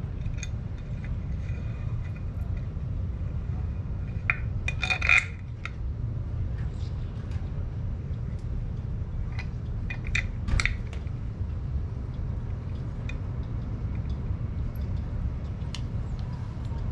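Metal parts clinking and knocking as a motorcycle headlight bucket and its turn-signal mounting hardware are handled and fitted by hand, loudest in two short clusters about five and ten seconds in, over a steady low rumble.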